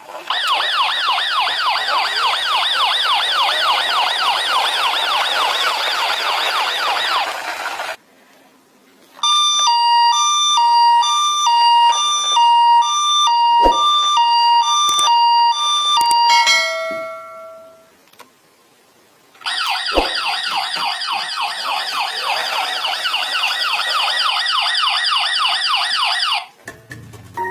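Electronic toy-vehicle sirens. A fast-warbling siren sounds for about eight seconds and stops. Then a clean two-tone siren alternates between two notes for about seven seconds and ends in a short falling run of notes. After a brief pause the warbling siren sounds again for about seven seconds.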